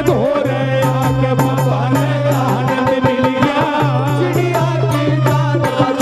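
Live Indian devotional bhajan music: a keyboard melody over a steady low bass note, with hand-drum (dholak) strokes keeping the rhythm.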